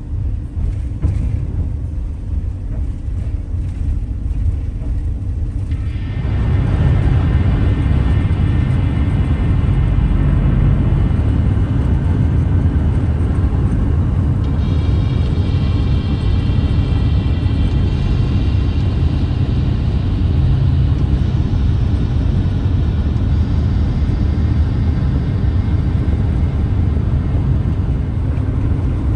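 Steady road and wind noise in the cab of a vehicle on the move, a low rumble that turns louder and hissier about six seconds in as the vehicle cruises at highway speed.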